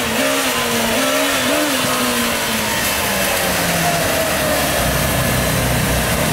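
Motorcycle engine revved hard and held high, the pitch wavering with the throttle, then easing down. A deeper engine rumble joins about two-thirds of the way through.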